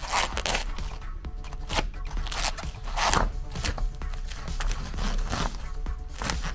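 Meat grinder running with a steady low hum, crunching through eggs in irregular crackling bursts.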